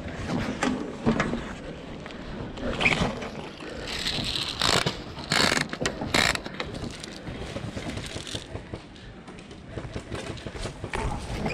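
Scraping and rustling handling noise close to the microphone, with three louder, sharp scrapes about halfway through.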